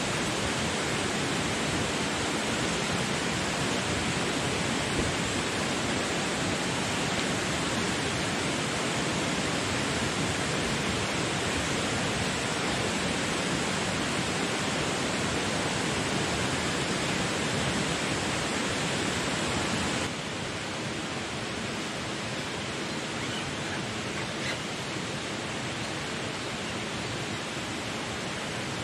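River water rushing steadily. A little quieter from about twenty seconds in.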